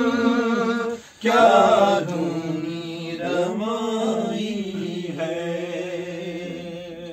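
Unaccompanied male naat recitation: after a short break about a second in, the reciter draws out one sung syllable in a long, wavering held note that slowly fades.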